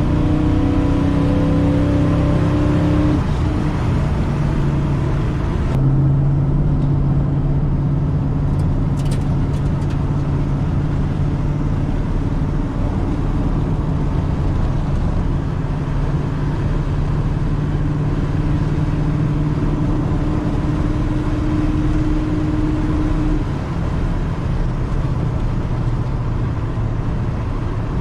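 Freshly built vehicle engine running steadily while driving, its note changing about six seconds in.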